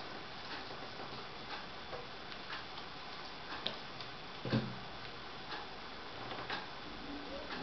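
A clock ticking steadily, about one tick a second, with a louder knock about four and a half seconds in as the juicer's plastic parts are handled.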